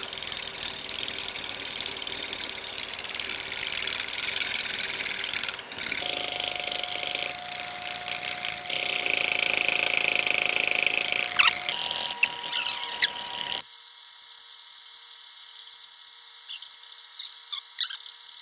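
Wire whisk beating heavy cream by hand in a stainless steel bowl, a steady scraping of the wires against the metal. About two-thirds of the way through the sound abruptly turns thin and tinny, its low end gone.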